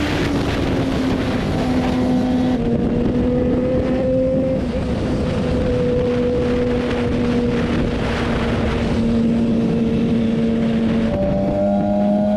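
BMW S1000RR's inline-four engine running at a steady highway cruise, with wind rushing over the microphone. Near the end the engine note dips and then begins to climb again.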